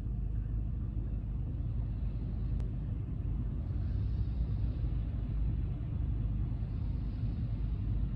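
Low, steady rumble of road traffic heard from inside a car stopped at a red light, as cars pass in front.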